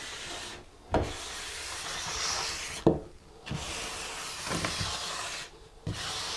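Hand float scraping over damp sand-mix (deck mud) mortar in about three long smoothing strokes, with a short knock as the float meets the mortar at the start of each stroke. This is the smoothing of a mortar-bed shower pan.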